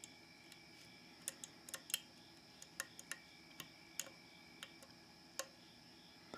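Quiet, irregular metallic clicks of a lock pick working the pin stacks of a Mul-T-Lock C10 padlock under tension. These are the clicks that the picker listens for as he sets the worn pins one by one.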